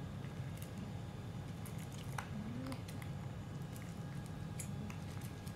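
Two cats chewing and smacking wet canned cat food from a stainless-steel bowl, with many small scattered clicks, over a steady low hum.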